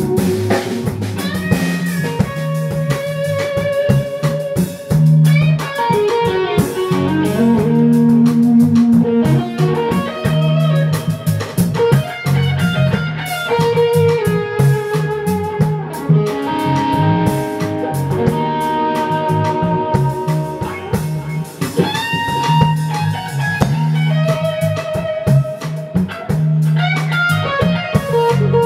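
Live blues band playing: an electric guitar solo on a Strat-style guitar, with long held notes, bent notes and vibrato, over bass guitar and a drum kit.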